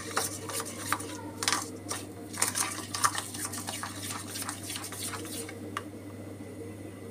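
Metal spoon stirring and beating a thick curd mixture in a stainless steel bowl, scraping and clinking against the metal at an irregular pace. The clinking stops about five and a half seconds in.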